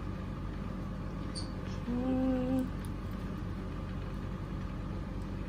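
Steady low background hum of a room, with one short pitched hummed note about two seconds in and faint small clicks just before it.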